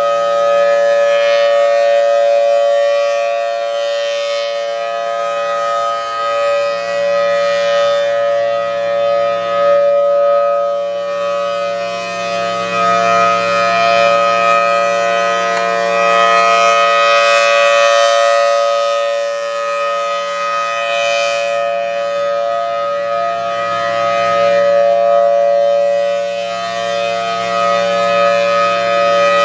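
Federal Thunderbolt 1003 dual-tone outdoor warning siren sounding at full speed for a test. It holds a steady chord, very loud, and its loudness swells and fades slowly as the rotating horn sweeps around.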